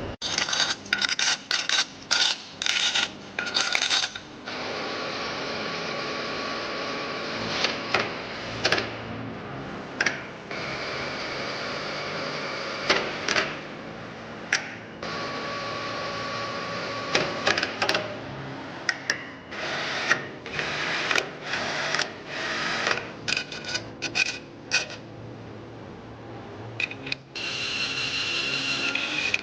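Workshop work on engine parts: many short metallic clicks and clinks of tools and parts being handled, over a steady hiss.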